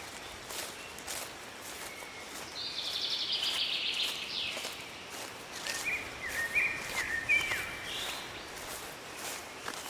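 Forest ambience with birdsong: a rapid high trill a few seconds in, then a run of short chirps, over a bed of faint rustling and scattered light ticks.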